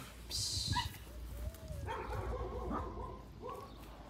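Dog whining softly in short, wavering notes from about two seconds in, with a brief hiss-like rustle near the start.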